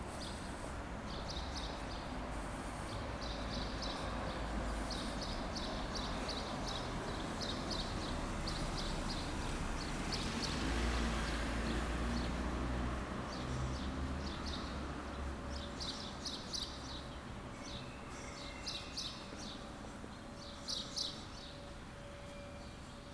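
Small birds chirping in quick clusters of short, high notes that repeat again and again, over a low outdoor rumble that swells in the middle and then eases off.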